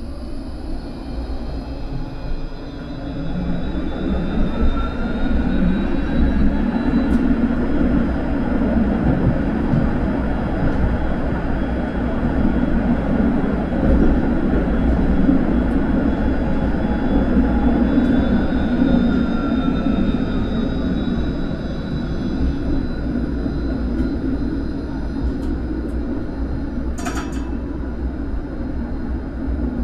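Vario LF2+ low-floor tram pulling away and running on the track. The traction motor whine rises in pitch as it accelerates over the first several seconds, then falls as it slows, over a steady rumble of wheels on rails. A brief sharp clatter comes near the end.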